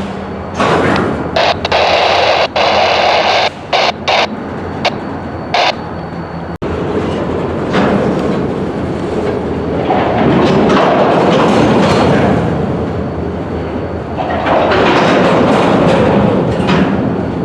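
Freight cars rolling on yard track during switching, a steady rolling noise that swells and eases, with a run of sharp clicks over the first few seconds.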